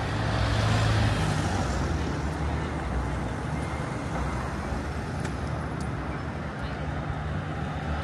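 City street traffic noise: a steady wash of passing road vehicles, with a vehicle engine's low rumble loudest in the first second or two.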